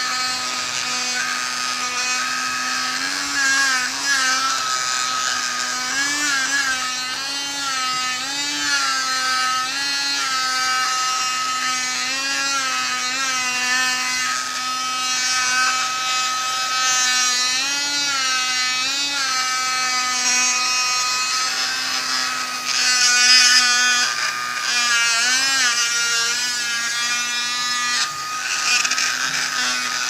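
Small USB-powered mini vacuum cleaner running: a steady motor whine whose pitch dips and wavers briefly several times, with a short louder hiss about three-quarters of the way through.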